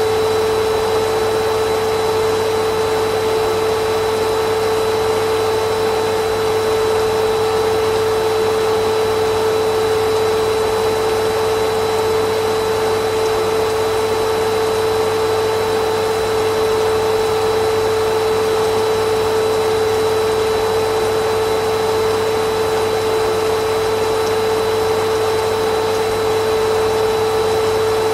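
Vacuum cleaner motor running continuously: a steady whirring rush with a strong constant whine, unchanging throughout.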